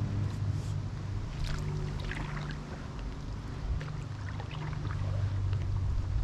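Paddle strokes from a stand-up paddleboard dipping into lake water, with splashing and trickling in a few clusters over a steady low rumble.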